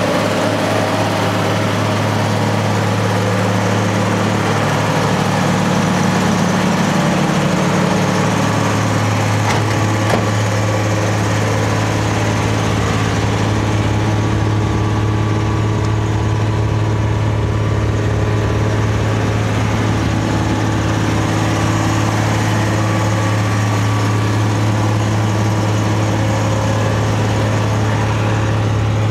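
Vanden Plas Princess 4-Litre R's Rolls-Royce straight-six engine idling steadily, with a constant low hum.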